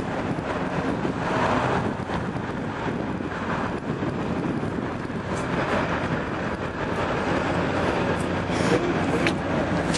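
City street ambience: a steady wash of passing traffic, with wind rumbling on the microphone of a handheld camera.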